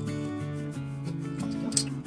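Background music: a melody of held notes that change every fraction of a second, over light, regular percussion.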